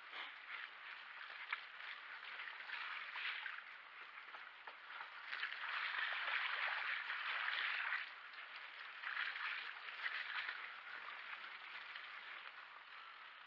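Mountain bike tyres rolling through wet mud and puddles, a hiss of spray and splashing that swells and eases and is loudest for a few seconds in the middle, with an occasional sharp click from the bike.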